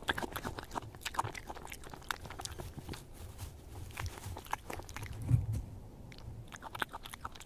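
European badger crunching and chewing peanuts and crackers, a dense run of quick sharp crunches, with one louder low thump about five seconds in.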